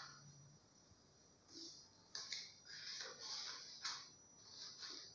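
Faint rustling and scraping handling noises, a string of short hissy scrapes that come more often in the second half.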